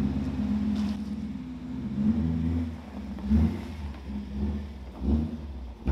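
BMW E39 M5's naturally aspirated 4.9-litre V8, straight-piped with an X-pipe and muffler delete, running at low revs as the car creeps out, with three brief swells of throttle.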